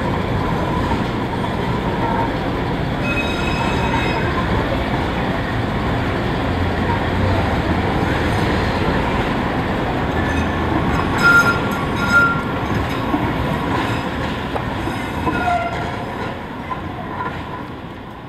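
San Francisco Muni Breda light-rail car pulling out and rounding a curve in the street track: a steady rumble of the car and its wheels on the rails, with short high wheel squeals on the curve, the loudest two a little past halfway. The sound fades near the end as the car moves off.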